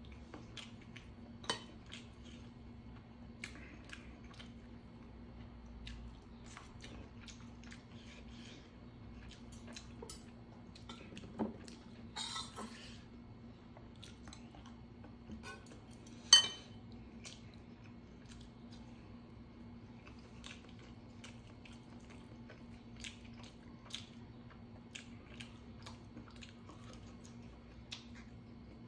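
A person chewing and eating kimchi tuna stew, with scattered small clicks of a utensil against dishes over a faint steady hum. One sharp clink about 16 seconds in is the loudest sound, and there is a brief noisy burst about 12 seconds in.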